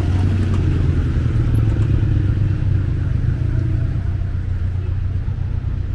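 Road traffic: cars driving past close by with a steady engine and tyre rumble, strongest in the first few seconds.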